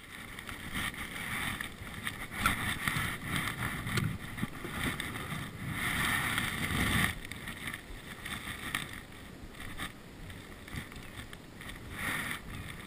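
Wind buffeting the microphone in uneven gusts, rising and falling in loudness.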